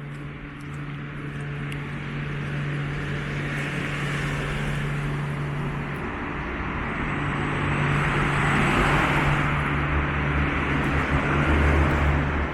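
Road traffic: cars passing, their tyre and engine noise swelling around four seconds in and again, louder, from about eight seconds on, with a low rumble near the end. A steady low hum runs underneath.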